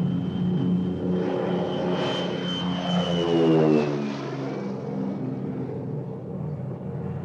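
An airplane flying past. Its engine tone drops in pitch as it passes, loudest about three and a half seconds in, then fades to a steadier drone.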